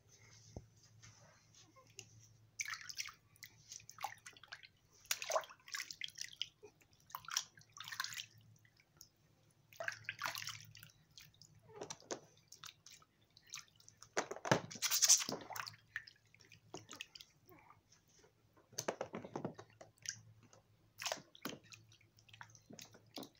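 Water splashing and dripping in a plastic baby bathtub as hands wash a newborn, in irregular splashes with the loudest about halfway through. A faint steady low hum runs underneath.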